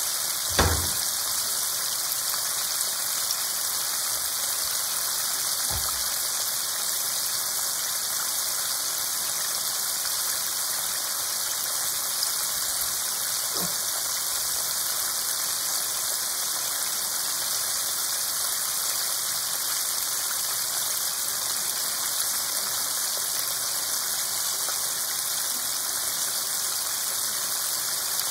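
Chicken pieces deep-frying in hot oil in a pan: a steady sizzle and crackle of bubbling oil. A few brief low thumps cut through it, the loudest about half a second in.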